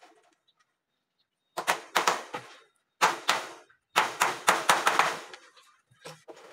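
Hammer driving nails into a wooden sieve frame: three bursts of sharp blows, about three to five a second, beginning about a second and a half in, with a few lighter knocks near the end.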